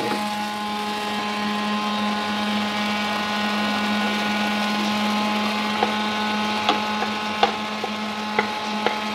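A steady machine hum runs throughout. In the second half come a few light knocks as chopped vegetables are scraped off a plate into a wok with a wooden spatula.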